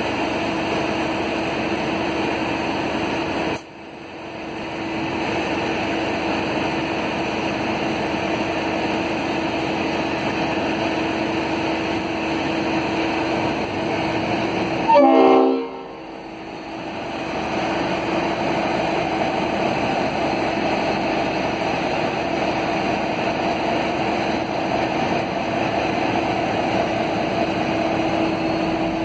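V/Line N class diesel-electric locomotive idling at a standstill, a steady engine hum with one held tone. About halfway it gives one short horn toot, the loudest sound here.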